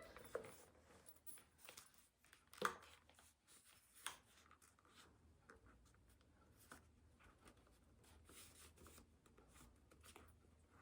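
Near silence with faint handling sounds of a handbag being worked, two small knocks standing out about two and a half and four seconds in.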